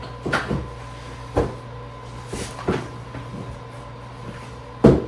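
Knocks and clicks of a sofa's back piece being handled and slid into its frame brackets, a handful of separate strikes with the loudest one near the end.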